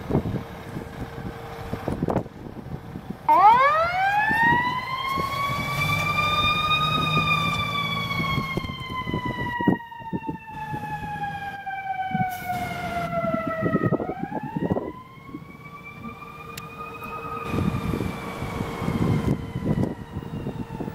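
Fire engine siren winding up steeply about three seconds in, peaking and then slowly winding down, then winding up again about fourteen seconds in before fading, with the truck's engine rumbling underneath.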